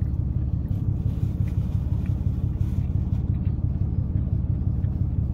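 A car's engine idling steadily, heard from inside the cabin as a low, even hum. A few faint clicks sit on top of it.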